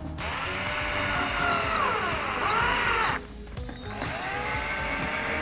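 Cordless power drill running under load against the sheet-metal case of a toaster oven, its motor whine sliding down and up in pitch as the trigger is eased and squeezed. It stops about three seconds in and starts again about a second later.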